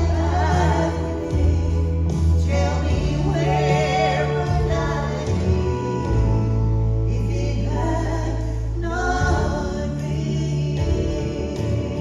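Female gospel vocal trio singing with vibrato, in phrases a couple of seconds long, over instrumental accompaniment with long, steady bass notes.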